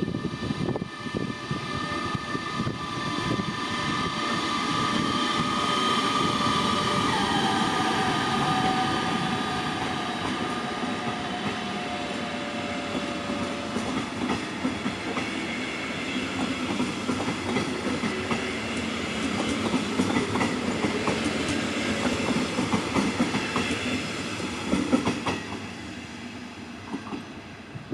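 DB Class 146 electric locomotive (Bombardier TRAXX) hauling a double-deck regional train past: its electric drive whines in several steady tones that drop in pitch about seven seconds in as the locomotive goes by. The coaches follow with a steady rumble and clicking wheels on the rails, fading near the end.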